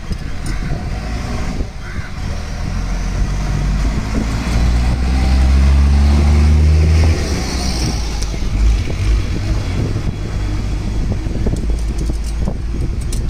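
A motor vehicle's engine running close by, a low steady hum that grows louder over a few seconds and then drops off sharply about halfway through, over general street noise.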